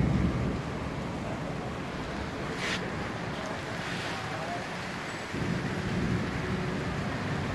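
Steady storm noise of wind and rain, with wind buffeting the microphone. There is a brief hiss about three seconds in, and a heavier low rumble from about five seconds.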